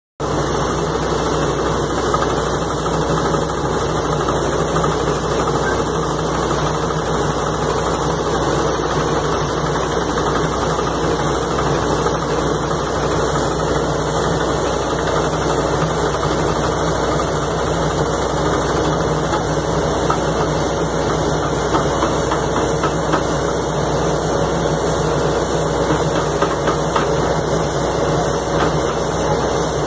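Tracked hydraulic anchor-drilling rig running steadily while drilling casing and rod into the ground: its engine and hydraulics make one continuous machine noise.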